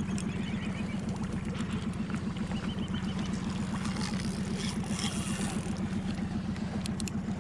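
An engine running steadily: an even low hum with a fast, regular pulse.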